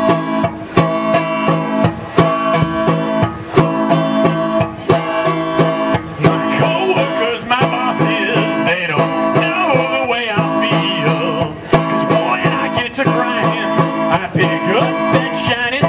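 Live country band playing an instrumental break led by a picked five-string-style banjo, its sharp plucked notes keeping a steady rhythm. From about six seconds in, a wavering higher melody line joins over the banjo.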